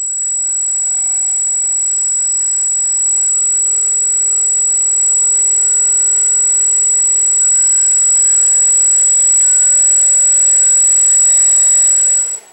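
ParkZone Archer park flyer's small electric motor spinning its propeller on a ground motor test: a loud, steady high-pitched whine under a motor hum. The motor speeds up in steps a few times, then the throttle is cut near the end and the prop winds down.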